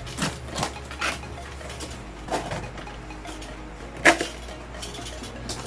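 Handling of the boxed mini refrigerator and its packaging: a few separate knocks and clatters, the loudest about four seconds in, over faint background music.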